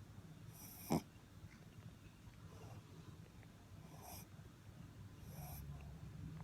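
Maltese puppy snoring in its sleep: soft snores about every second and a half, with one sharper, louder snort about a second in.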